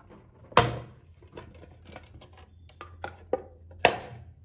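Two sharp snaps about three seconds apart as a folding knife cuts through the plastic security-tag loops on a tin gift box, with lighter clicks and taps from the knife and the tin being handled in between.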